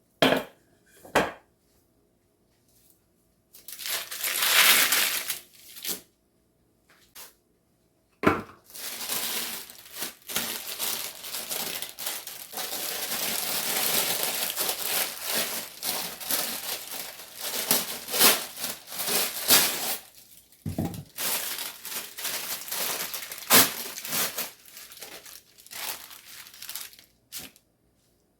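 Crinkling and rustling of something handled by hand, in short bursts at first and then almost without pause for most of the stretch, with many small sharp crackles.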